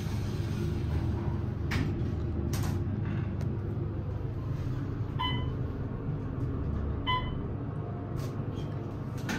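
Otis traction elevator (a modernized Westinghouse) closing its doors and running, heard from inside the car as a steady low rumble. There are a couple of sharp clicks in the first few seconds, and two short electronic chime dings about five and seven seconds in.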